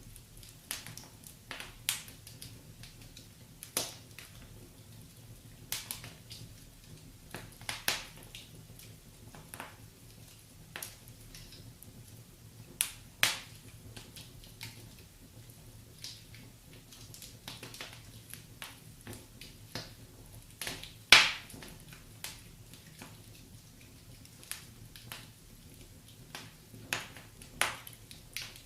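Wood fire in a fireplace crackling, with irregular sharp pops about once a second and one louder pop about two-thirds of the way through, over a faint low steady background.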